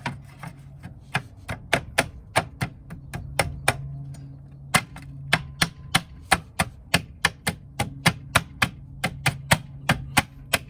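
A wheel cover being tapped onto a car's steel wheel, seating its retaining ring: a rapid run of sharp knocks, about four a second, with a short pause about four seconds in.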